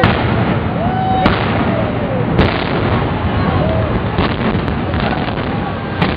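Explosive demolition charges bringing down a large office building: a string of sharp bangs, several about a second apart, over a continuous rumble.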